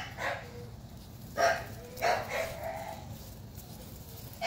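American Bully puppies barking and yipping in short calls, about four in the first three seconds, the last one drawn out a little longer.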